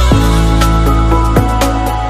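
Music with a steady beat: held synth-like chords over deep bass-drum hits that drop in pitch, with quick hi-hat ticks.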